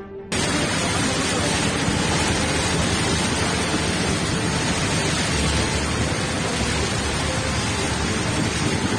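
Steady rush of heavy rain and floodwater, cutting in abruptly just after the start and holding even throughout.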